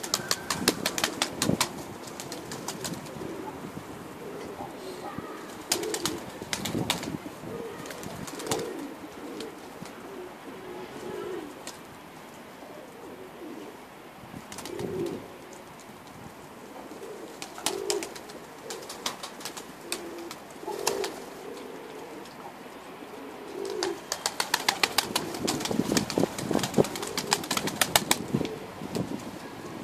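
Kelkit crested pigeons cooing over and over, with several bursts of rapid wing flapping. The flapping bursts are the loudest sounds, and the longest comes near the end.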